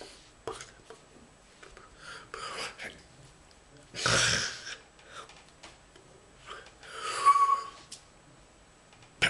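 A man's breathy exhalations and short non-word vocal noises, the loudest about four seconds in and another around seven seconds, with a sharp click just before the end.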